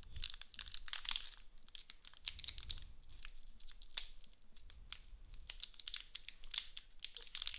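Foil Pokémon booster pack wrapper crinkling and crackling as fingers pick at and tear its crimped top seal, in stop-start bursts of sharp crackles: a stubborn pack being worked open.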